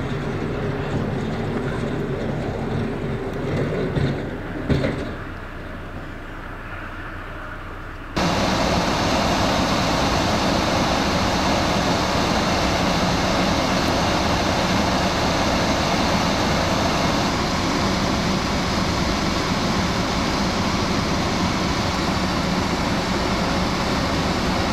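Low engine and road rumble from a salt-spreading snowplow truck driving on a snowy highway, with a couple of brief louder bumps midway. About eight seconds in, it cuts abruptly to a steady, louder rushing noise that holds unchanged.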